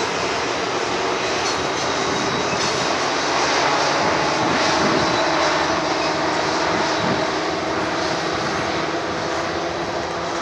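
Several Union Pacific diesel-electric locomotives passing close by, their engines running in a loud, steady drone with several held tones over it.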